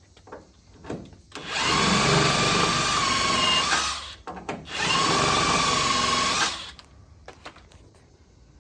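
Handheld power tool running twice, a run of about two and a half seconds, a short pause, then a run of about two seconds, with a steady whine; a few light clicks before and after.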